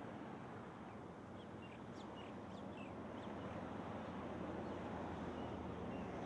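Steady background hiss of outdoor ambience, with a quick run of short, high bird chirps about two to three seconds in.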